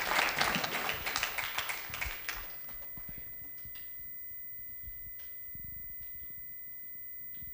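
Audience applause tapering off and stopping about two seconds in. A quiet hall follows, with a faint steady high tone and a few soft knocks.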